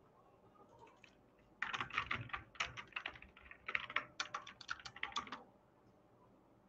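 Computer keyboard typing in quick runs of keystrokes, starting about a second and a half in and stopping a little before the end.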